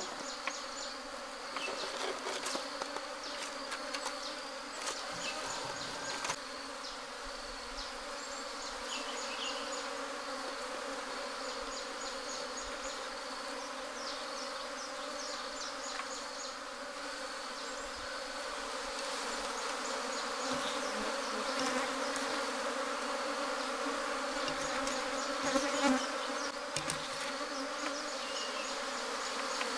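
A swarm of honey bees clustered on a branch, buzzing in a steady low hum with a higher overtone, getting louder in the second half. Short high chirps come and go over the hum.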